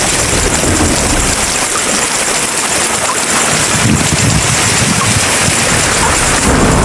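Steady heavy rain: a loud, dense, even hiss with a shifting low rumble underneath.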